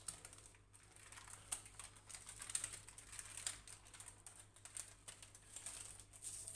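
Faint irregular crinkling and ticking of baking paper being peeled off a freshly baked sponge cake.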